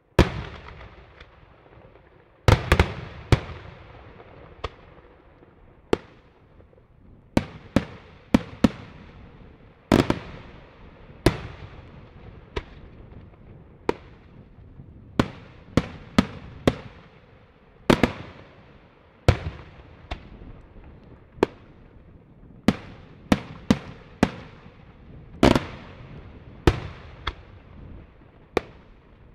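Daytime aerial fireworks shells bursting overhead in an irregular string of sharp bangs, some in quick clusters, each trailing off in a rolling echo.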